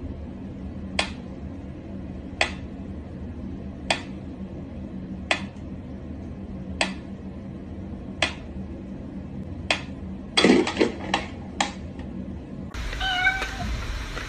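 Mechanical pendulum metronome ticking slowly and evenly, about one sharp tick every second and a half. About ten seconds in comes a quick run of louder clicks and knocks, and near the end the sound cuts to a different, fuller background with a few short pitched sounds.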